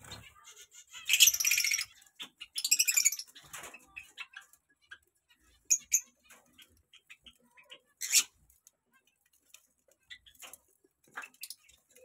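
Small cage finches calling: two loud bursts of high chattering calls in the first few seconds, then scattered single chirps.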